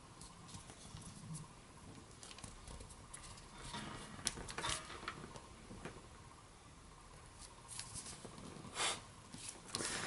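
Origami paper being folded and pressed flat by hand, faint rustling with scattered soft crackles, a little busier about four seconds in and again near the end.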